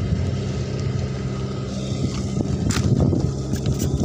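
Engine of a dompeng suction gold-mining machine running with a steady, even hum. About three seconds in, a few short clicks of pebbles knocking together as a hand picks through the stones.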